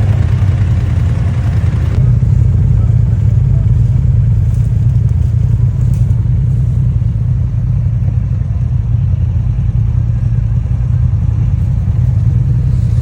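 Off-road vehicle running on a trail: a steady, loud low rumble of engine and drive noise.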